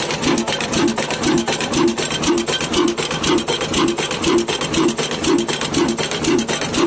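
Old Ruston Hornsby stationary diesel engine running steadily under load, with an even beat of about three strokes a second, over the continuous grinding rasp of the flour mill it drives.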